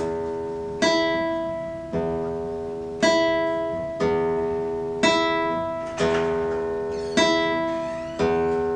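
Classical guitar played slowly: a plucked note or chord about once a second, each ringing out and fading before the next.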